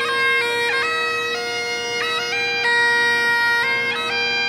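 Great Highland bagpipes played solo: a steady drone held under a chanter melody that steps between held notes, broken by quick grace-note flicks.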